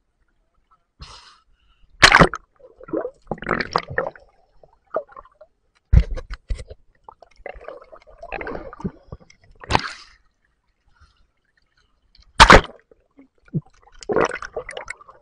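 Sea water splashing and gurgling against a waterproof camera as it dips under the surface, in irregular bursts with four sharp, loud splashes spread through.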